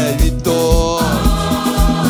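Live Haitian roots band playing: drums keep a steady beat under bass and guitar, with a woman singing a held note over it from about a second in.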